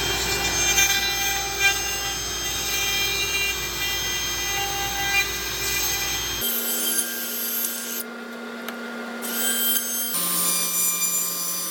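Woodworking power tool motors running steadily with a whine, changing abruptly about six seconds in and again about ten seconds in.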